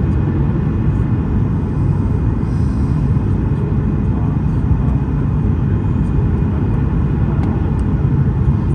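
Steady low cabin roar of a Boeing 737 airliner descending on approach, engines and airflow heard from inside the cabin at a window seat over the wing.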